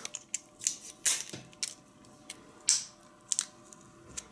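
A counterfeit Xiaomi power bank being taken apart by hand: a string of about ten irregular sharp clicks and taps as its plastic casing and dummy cells are handled on a tabletop.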